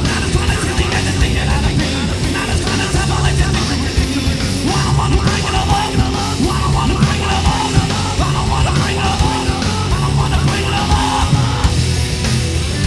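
Loud live heavy rock band playing with distorted electric guitar, bass and drums. A singer shouts into the microphone through the middle of the passage.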